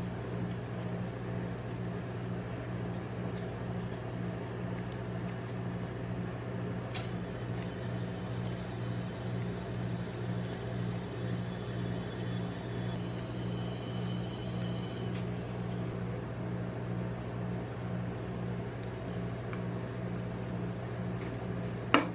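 Steady electric hum of a rolled-ice-cream machine's refrigerated cold plate running. A faint hiss joins for several seconds midway, and a sharp click comes near the end.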